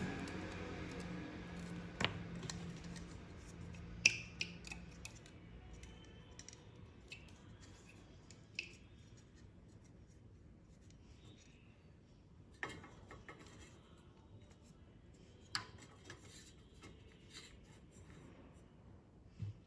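A few sharp snips and clicks, several seconds apart, amid light rubbing and handling noise.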